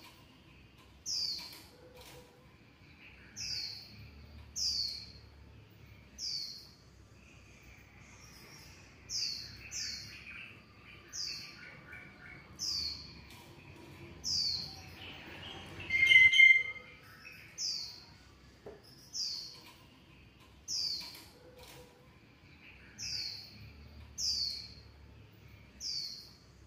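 Short high chirps, each sliding down in pitch, repeated about every one to two seconds over a faint steady background hiss; one louder call a little past halfway.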